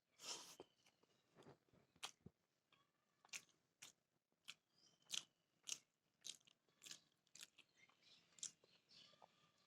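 A person chewing food close to the microphone: a steady run of short wet clicks and crunches, about two a second.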